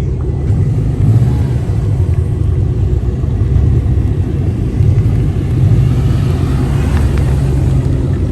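Steady low rumble of car engines running close by.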